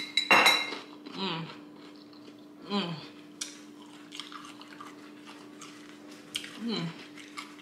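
A metal fork clinks sharply against a glass pickle jar at the start, with a brief ring. After that come three short hummed "mm" sounds while eating, over a steady low hum.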